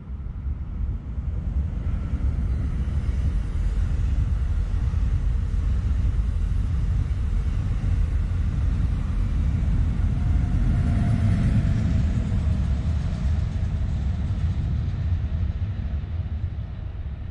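NJ Transit multilevel passenger train passing on a nearby track, with a steady rumble of wheels on rail that builds about a second in and eases off near the end.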